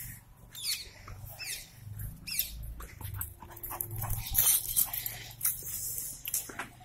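A yellow Labrador retriever at play, carrying a woven straw object in its mouth: a run of short scuffs, clicks and rustles.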